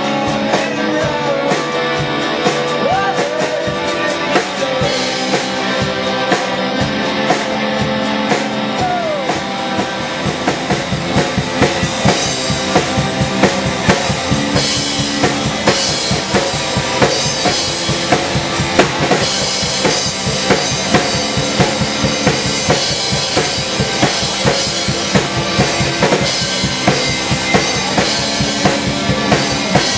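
Live rock band playing electric guitars and a drum kit. About a third of the way in the drums grow busier and louder, with cymbals.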